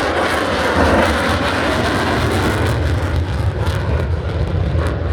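Jet roar from an F-35C Lightning II's single Pratt & Whitney F135 engine in afterburner on a slow pass, very loud, dropping a little in pitch over the first couple of seconds as it goes by.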